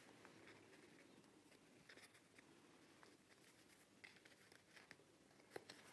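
Near silence, broken by a few faint taps and rustles as paper stickers are handled and pressed into a planner's pockets.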